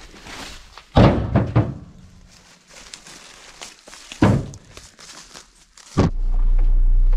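Heavy thunks of jarrah firewood rounds landing in a ute's loaded tray: one about a second in with a few quick knocks after it, and another single thunk a little after four seconds. About six seconds in there is a knock, and a steady low rumble begins.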